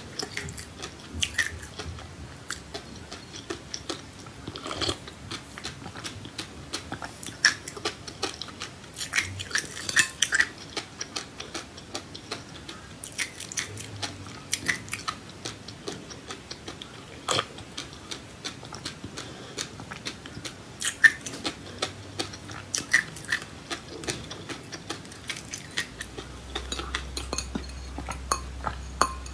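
Close-up chewing and crunching of seeds, with many small sharp crackles coming irregularly. A low hum comes in near the end.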